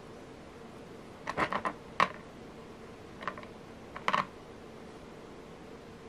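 Small hard clicks of metal beads and lava stone beads knocking against each other and the tabletop as they are picked up and threaded onto a needle: a quick run of clicks about a second in, a single sharp click at two seconds, and a few more around three and four seconds.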